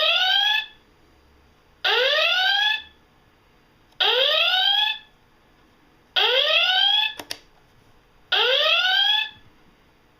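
Star Trek U.S.S. Enterprise door chime sounding the original-series red alert klaxon on its loud volume setting: a rising whoop about a second long, repeated five times roughly every two seconds and then stopping. A short click is heard once, about seven seconds in.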